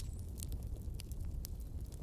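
Campfire burning, with scattered sharp pops and crackles from the wood over a steady low rumble.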